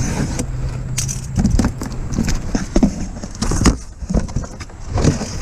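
Irregular clicks, knocks and rattles of a slide-on towing mirror being handled and taken out of its box.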